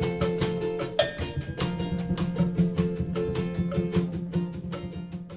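Background music of fast, rhythmic plucked-string strumming over a steady bass, fading out near the end.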